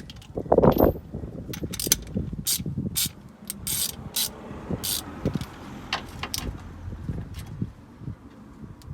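Hand tools working on metal car suspension parts: irregular metallic clicks and clanks, with a louder knock about half a second in.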